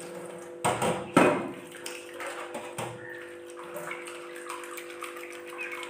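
Water running from a tap over a blender jar's blade assembly, rinsing out the acid cleaning solution and dirt, with a couple of sharp knocks about a second in.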